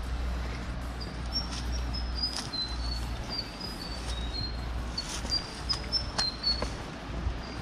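A small bird chirping a rapid run of short, high notes that shift a little in pitch, over a low steady rumble. A few sharp steps and scrapes on stone and dry brush come through as someone clambers down a rocky, grassy slope.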